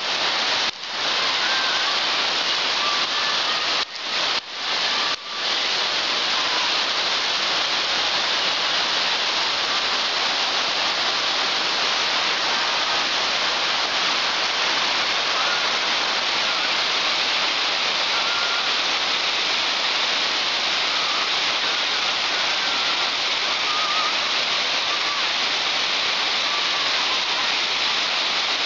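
Steady, even rush of falling water from a thin waterfall running down a rock face. The sound briefly cuts out once about a second in and three times between four and five and a half seconds in.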